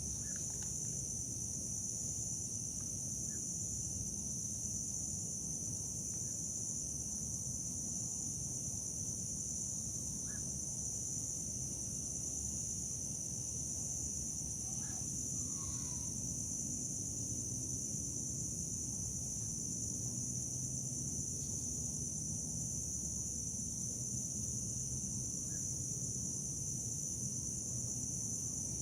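A steady, high-pitched chorus of insects, over a constant low rumble, with a few faint short chirps scattered through it.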